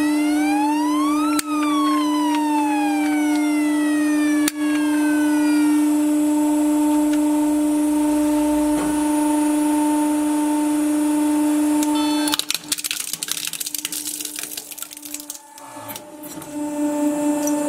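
A steady electric hum, with a single siren-like electronic sweep rising and then slowly falling over the first few seconds. About twelve seconds in, a toy police car is crushed under a hydraulic press: about four seconds of dense crackling and snapping of its plastic and metal body.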